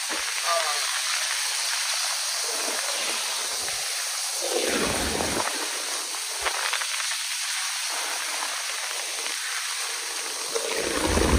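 Heavy downpour of rain, a steady hiss. A brief low rumble comes about halfway through, and another low rumble sets in near the end.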